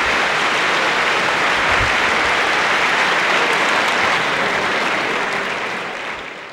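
Audience applauding, a dense steady clapping that fades out over the last two seconds or so.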